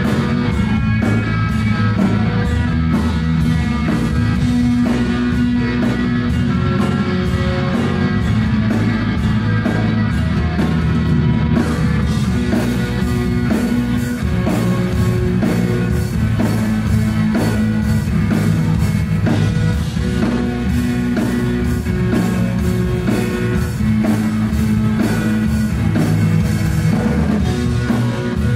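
Live rock band playing loudly: electric guitars over a steady drum-kit beat.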